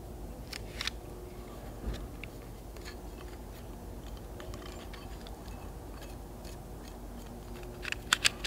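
Hand-handling noises of adhesive rubber strip being peeled from its backing and pressed onto a roof-rack mount: faint scattered crinkles and small clicks, with a few sharper clicks about a second in and again near the end, over a steady low hum.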